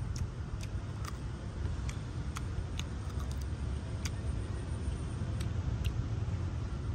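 Crispy fried tarantulas being chewed and picked apart by hand: scattered sharp crunches and crackles, about a dozen over several seconds, over a steady low rumble.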